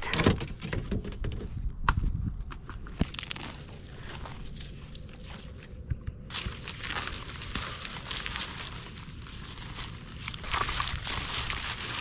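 Footsteps over dry garden ground, with rustling and crackling of dry plant stems in irregular bursts, busier near the end.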